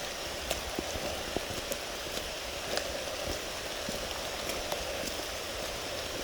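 Steady rainfall, with scattered drops tapping close by.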